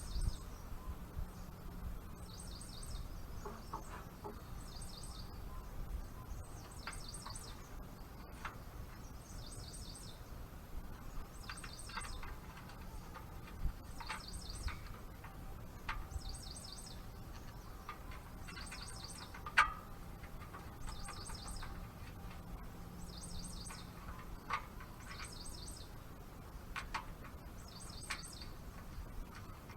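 A bird chirping again and again, each call a quick cluster of high notes, repeating about every one and a half seconds. Occasional sharp clicks and taps of hand tools on metal, the loudest about two-thirds of the way through.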